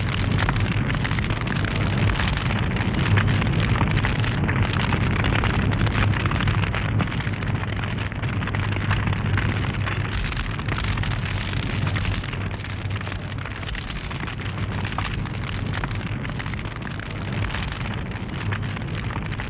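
Wood fire burning in the firebox of a wood-fired kiln during a bisque firing, a steady rushing noise with fine crackling.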